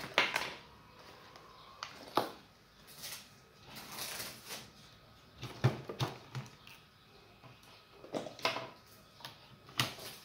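Multimeter test probes and their leads being handled: irregular clicks, taps and rustles as the probes are swapped and laid against the coil terminals.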